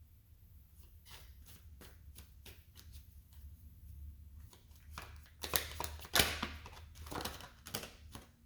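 Tarot cards being shuffled by hand: soft card clicks at first, then a louder, denser run of shuffling a little past halfway.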